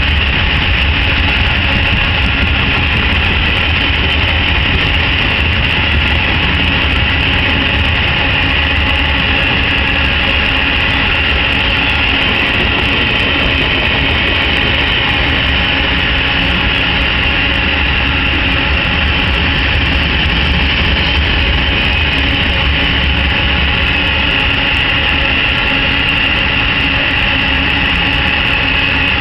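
Loaded iron-ore hopper cars of a long freight train rolling past on steel rails: a loud, continuous, steady rumble of wheels on track.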